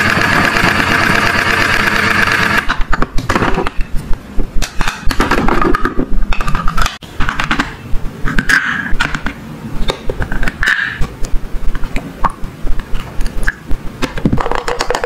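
A toy cooking grill's steady electric hum, cutting off about two and a half seconds in. Then a run of light, uneven clicks and taps as plastic tongs pick up toy sweets and drop them into plastic cups.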